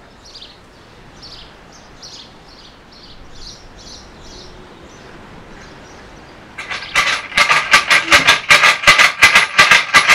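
A faint bird chirping about twice a second over a quiet background; then, about six and a half seconds in, a matraca, a wooden clapper board with metal rings, is shaken, with loud rapid clattering at about five knocks a second.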